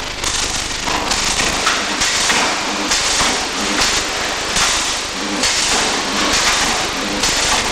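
Electric arc welding: a loud crackling hiss from the arc that swells and eases about once a second.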